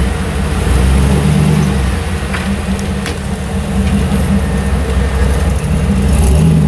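Jeep Wrangler YJ engine working at low speed as the lifted Jeep crawls over boulders, rising and easing as the driver feeds throttle, with a couple of brief knocks a little past two seconds in.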